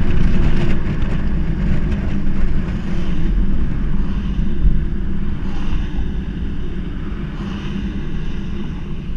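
Holden Commodore VR 3.8 V6 engine and exhaust running, a heavy low rumble mixed with road and wind noise, louder for the first couple of seconds and then easing a little. This is the car whose engine or exhaust the owner says makes a stuttering sound and is slow to rev under acceleration.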